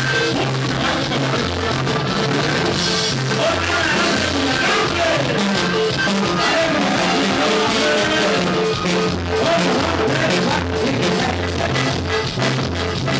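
Live norteño-style band music played loud: button accordion carrying the melody over bass and drums, with a male singer.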